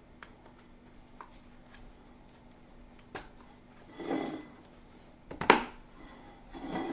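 Microfiber mop head being pressed onto the plastic base of an O-Cedar EasyWring spin mop: faint handling clicks and a soft rustle, then a sharp plastic snap about five and a half seconds in as one of its clips locks into place, and a softer snap near the end.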